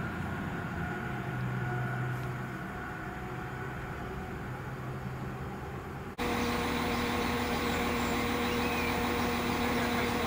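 Northern Class 195 diesel multiple unit: at first a faint, steady low drone from the train running in the distance. About six seconds in, an abrupt cut to the train close by, its diesel engines idling with a louder steady hum and a clear held tone.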